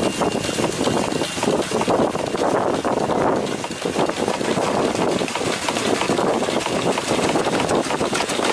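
Peerless single-cylinder steam engine running steadily under steam, a fast, even clatter from its moving parts.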